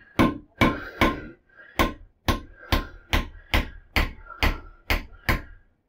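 Claw hammer tapping the head of a toilet-seat mounting bolt, driving its tight-fitting anchor down into the porcelain bowl's bolt hole. About a dozen even taps, roughly two a second with a short pause near the start, each with a brief metallic ring.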